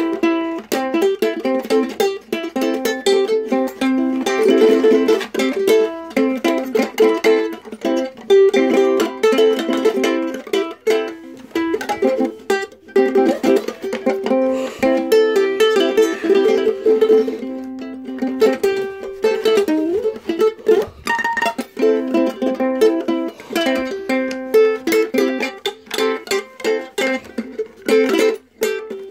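Ukulele played continuously, a steady stream of plucked and strummed notes with short breaks about twelve and twenty-one seconds in.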